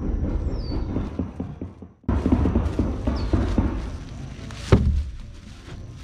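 Wind rumbling on the microphone with scattered knocks from handling, broken by a brief drop-out about two seconds in. A bird gives short falling chirps twice, and a single sharp thump, the loudest sound, comes about three-quarters of the way through.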